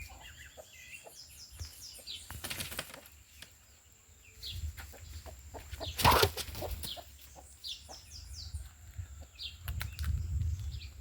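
Songbirds calling with short, high chirps several times, and one brief, loud rustle about six seconds in.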